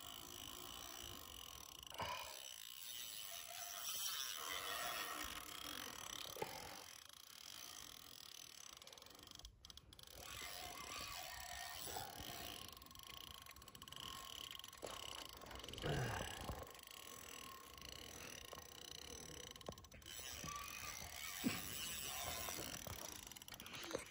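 Fishing reel being worked while a big carp is played on a bent rod: a faint mechanical whirr, with a high tone pulsing about twice a second for several seconds in the middle.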